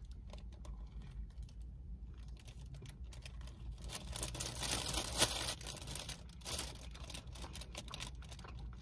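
Clear plastic pastry bag crinkling and rustling in the hands while a bun is eaten out of it, a busy patter of small crackles that grows louder about four seconds in and settles again after six.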